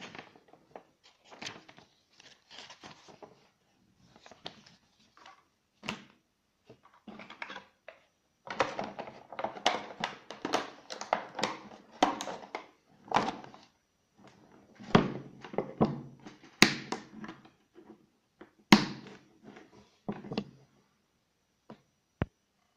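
Paper rustling as a manual is leafed through, then a plastic tool case being handled. In the second half a manual hand staple gun (tacker) fires staples into wood over a cable, about four sharp snaps a second or two apart.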